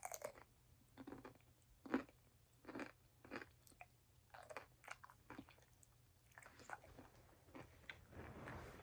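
Someone chewing crunchy food close to the microphone, with a string of short, sharp crunches at uneven intervals.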